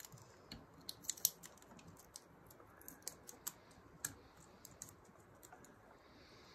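Scattered light clicks and ticks of hands handling a gas dryer's small metal gas valve assembly, with a cluster of sharper clicks in the first second or two.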